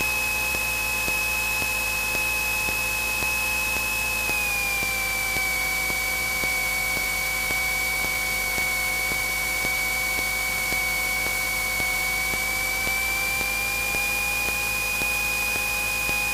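Cabin noise of a Cessna 172N in flight: its Lycoming O-320 four-cylinder engine and propeller droning steadily on final approach. The drone drops slightly in pitch about four seconds in and climbs back near the end.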